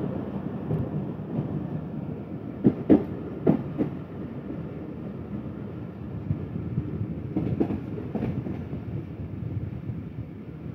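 Passenger train running along the track, heard from aboard a moving coach: a steady rumble broken by two clusters of sharp clicks as the wheels pass over rail joints.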